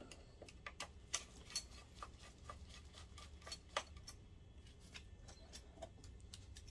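Faint, irregular light clicks and taps as small plastic and metal parts and cable connectors inside an opened DLP projector are handled and worked loose.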